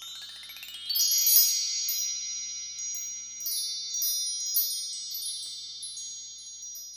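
Bright chimes: a rising shimmer over about the first second opens into a cluster of high ringing notes with scattered light strikes, slowly dying away.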